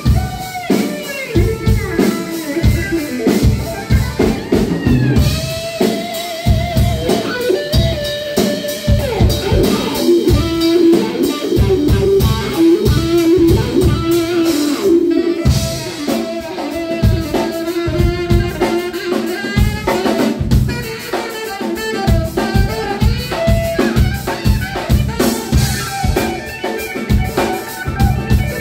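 Live rock band playing: an electric guitar solos with long bent and wavering held notes over a drum kit keeping a steady beat.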